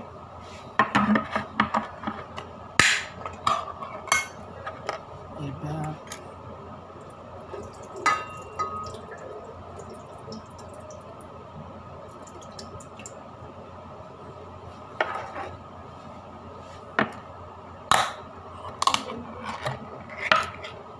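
Cooking pot and kitchen utensils clinking and knocking against each other in scattered sharp strikes, a cluster in the first few seconds and another near the end, over a steady hum.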